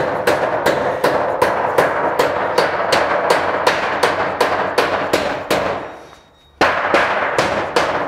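Rubber mallet striking the end of a metal standing seam roof panel in quick, even blows, about five a second, each leaving the panel ringing briefly. The strikes stop for about half a second around six seconds in, then start again: the panel is being driven up tight against the head wall.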